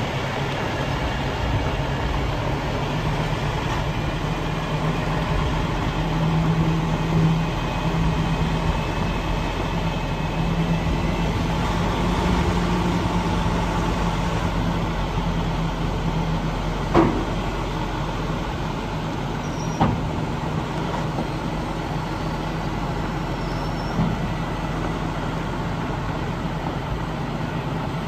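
Detroit DD15 six-cylinder diesel of a Freightliner SD122 dump truck running steadily while the raised dump body is brought down. A few sharp clunks come in the second half, the loudest just past the middle.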